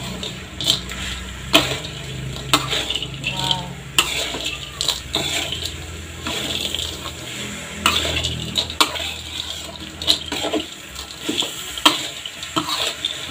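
A spatula stirring and scraping tempe cubes through bubbling sugar caramel in a wok: repeated scrapes and knocks against the pan over the bubbling of the syrup.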